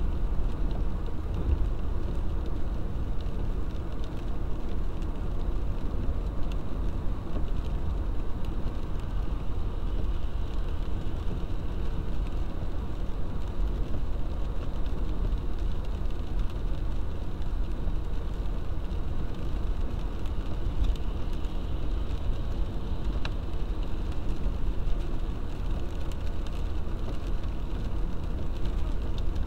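Steady engine and tyre noise from inside a car driving on a wet road in the rain, with rain on the windscreen.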